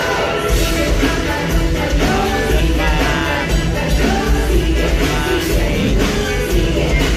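A live band playing with a drum kit and heavy bass while women sing, one of them holding a wavering note about three seconds in.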